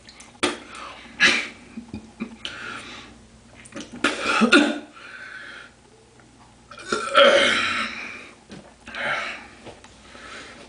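A man belching over and over, about six belches of different lengths. The loudest come about four seconds in and about seven seconds in, the second of these long and drawn out.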